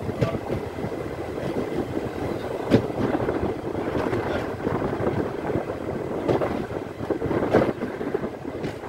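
Running noise of a moving passenger train at an open coach window, with wind on the microphone. A few sharp knocks cut through the rumble, the loudest about three seconds in and another late on.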